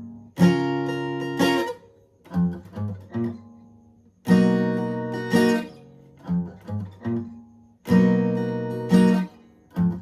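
Guitar, tuned a half step down, playing a repeating riff: two ringing strummed barre chords about a second apart, then three short picked notes, the pattern coming round about every three and a half seconds.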